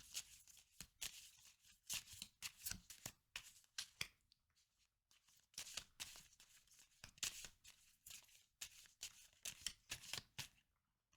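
A deck of fortune-telling cards being shuffled by hand: faint, quick papery slaps and flutters, with a short pause about four seconds in, stopping just before the end.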